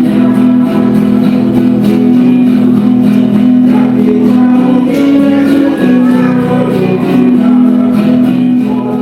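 Hymn singing with instrumental accompaniment, held notes moving step by step in a steady sung melody.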